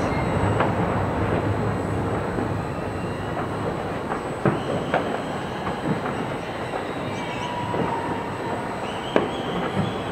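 Continuous rumbling outdoor noise with scattered sharp pops and a couple of brief high squeals.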